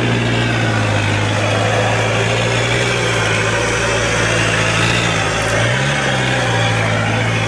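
Engine of a homemade off-road buggy held at steady revs under load as its wheels spin in loose dirt, its pitch rising briefly about six seconds in.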